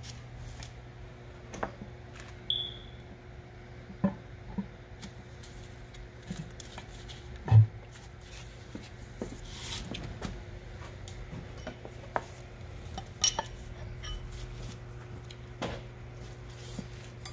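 Scattered metallic clinks and light knocks of parts and tools being handled on a Flygt pump's metal housing, with one heavy thump about seven and a half seconds in. A steady low hum runs underneath.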